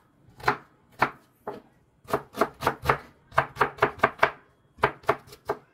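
Kitchen knife chopping red onion on a plastic cutting board: a few separate strokes, then quick runs of chops at about four to six a second, then a few more strokes near the end.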